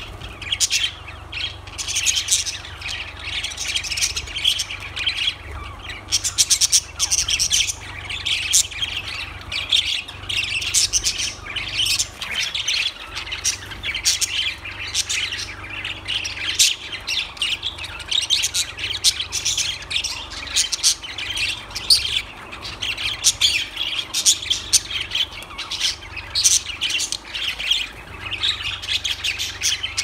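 A flock of budgerigars chattering without a break: a dense overlapping mix of quick high chirps and squawks from many birds at once.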